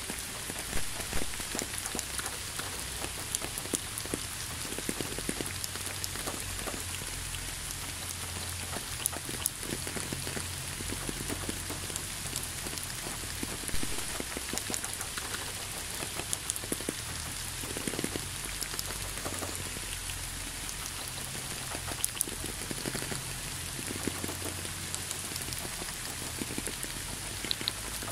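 Steady rain: an even hiss with many separate drops striking close by.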